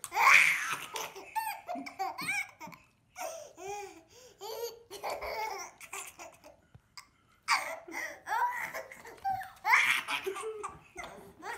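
A baby laughing hard in repeated bursts of giggles, with a pause of about a second and a half midway.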